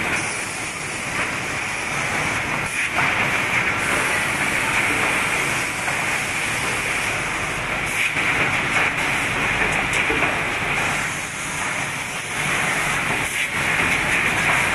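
Steady whirring hiss of an automatic rigid-box sleeving machine running, its conveyor belts and mechanisms going, with a few faint clicks.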